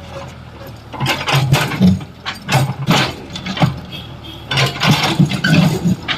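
Excavator diesel engine running under load, with repeated crunching and scraping as its bucket breaks and lifts a reinforced-concrete road slab.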